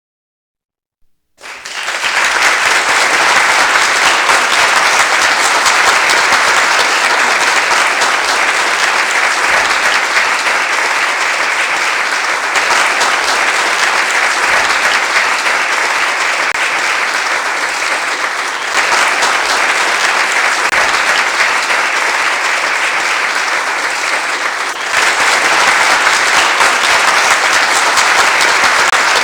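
Large audience applauding: many hands clapping in a dense, steady wash that starts abruptly about a second in, with slight jumps in level twice, near the middle and toward the end.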